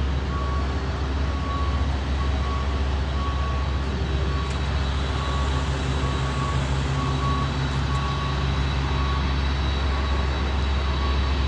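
Steady low rumble with a short high electronic beep repeating about once a second.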